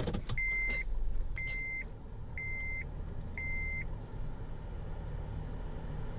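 A high electronic beep repeating about once a second, four times, then stopping, heard from inside a car over a low steady rumble, with a couple of clicks at the start.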